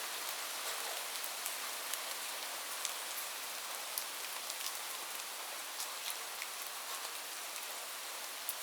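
Steady rain with a continuous hiss and scattered individual drops ticking sharply on a surface.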